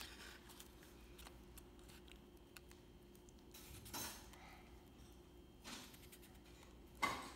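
Faint scraping of a glue stick rubbed over a paper tab, with a few brief strokes, the clearest about four seconds in and a sharper one near the end.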